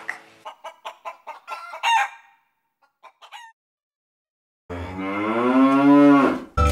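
Chickens clucking in short, clipped calls for about two seconds. After a pause comes one long rooster crow lasting about two seconds near the end.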